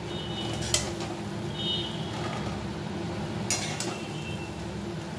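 A metal spatula scraping and clinking against a steel wok and plate as fried food is served. There are sharp clinks about a second in and again about three and a half seconds in, with brief metallic ringing, over a steady low hum.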